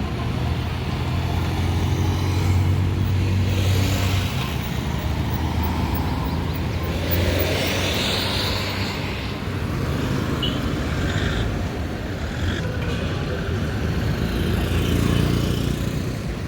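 Street traffic: a motor vehicle engine running with a steady low hum, and a vehicle passing about seven to eight seconds in.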